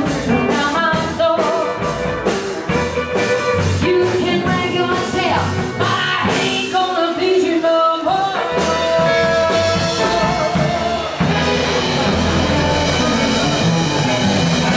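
Live rock and roll band playing electric bass, drum kit, acoustic guitar and saxophones, with a woman singing. The steady beat gives way to a long held chord in the last few seconds.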